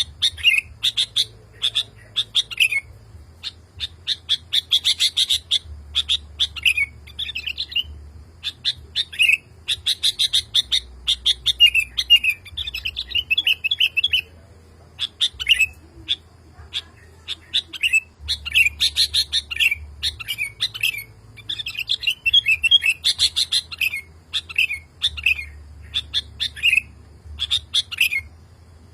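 Male sooty-headed bulbul (kutilang) singing: short, bubbly whistled phrases repeated over and over with only brief gaps, a male calling to a female.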